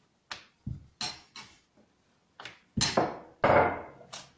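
Wooden rolling pin knocking and clattering against a granite countertop as small rounds of dough are rolled out: a scatter of sharp knocks, the loudest and longest rattle about three seconds in.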